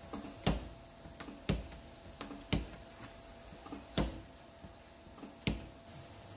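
Slide-hammer dent puller on a car's steel door panel: five sharp metallic knocks about a second apart, each a hammer stroke pulling out the dent and each led by a lighter click as the tip is set on the panel.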